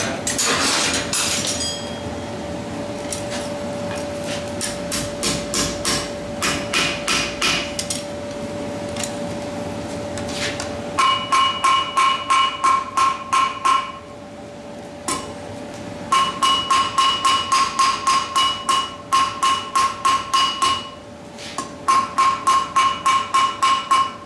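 Hand hammer striking steel held in tongs on a blacksmith's anvil, in runs of quick, even blows at about three a second. In the later runs each blow rings out with a clear metallic tone.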